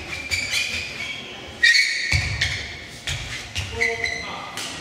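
Court shoes squeaking in short, high chirps on the sports-hall floor, with a few light thuds, scattered and irregular in a large hall.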